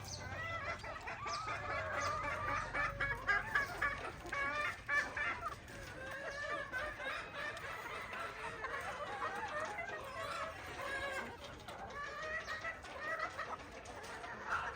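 A flock of chickens clucking, many birds calling over one another without a break, busiest in the first few seconds.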